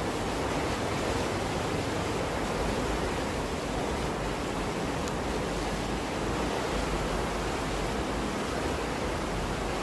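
Water rushing and churning in a lock chamber as the water level is equalized for a boat to pass through the lock gate: a steady, unbroken rush.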